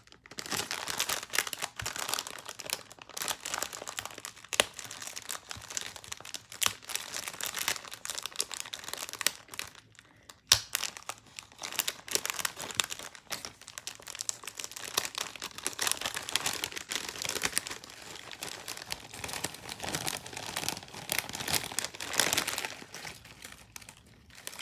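Packaging crinkling and rustling as it is handled and opened by hand, in dense crackly bursts with a short pause about ten seconds in.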